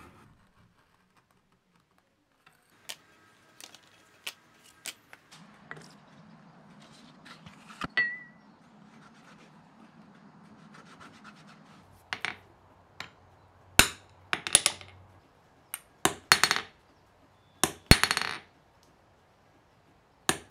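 Leather-working sounds: scattered light taps and clicks, and a single clink about eight seconds in. Over the second half come a few sharp hammer blows on a metal leather punch driven through the sheath leather.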